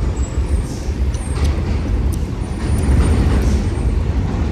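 Steady low rumble of an R160 subway train at an elevated station platform, with a few faint high whines.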